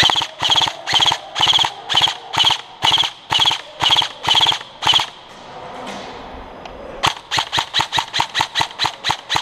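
M4-style airsoft rifle firing single shots: about eleven shots at roughly two a second, then after a pause of about two seconds a quicker string of shots at about six a second.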